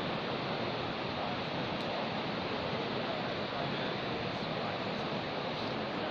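Fast mountain river rushing over rocks, a steady, unbroken noise of white water.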